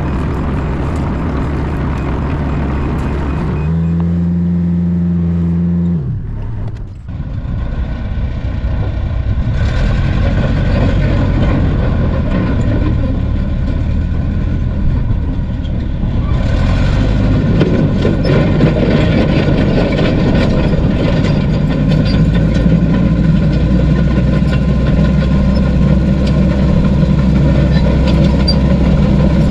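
Heavy equipment diesel engines running: first a mini excavator's engine with a steady tone for a few seconds, then, after a brief drop, a crawler bulldozer's diesel engine running as it tracks across the field. The engine sound is louder from about halfway through.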